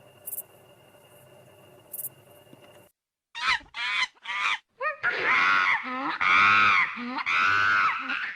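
Farm animals calling: after a faint steady hum with a couple of ticks, a run of short falling calls starts about three seconds in, followed by several loud, drawn-out calls.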